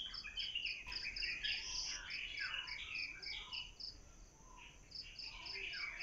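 Nature ambience: a high insect-like chirp pulsing about four times a second, with scattered bird chirps. The pulsing pauses for about a second roughly two-thirds of the way through, then resumes.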